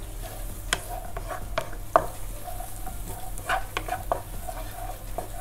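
Sliced onions sizzling gently in olive oil in a pan over low heat while being stirred. The utensil scrapes and knocks against the pan in irregular clicks every second or so.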